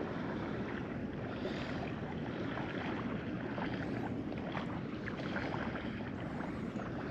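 Steady outdoor hiss of wind on the microphone and water at the shoreline.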